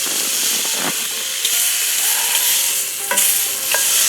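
Hot dogs sizzling in a pan on a camp stove: a steady hiss with a few small clicks.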